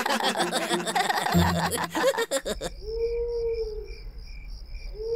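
Cartoon characters laughing for the first two and a half seconds or so. Then night ambience: crickets chirping in even pulses, with a low hooting call twice.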